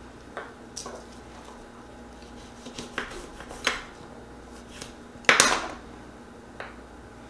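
Kitchen utensils and dishes clinking and knocking as they are handled: a few scattered light clinks, then a louder clatter about five seconds in.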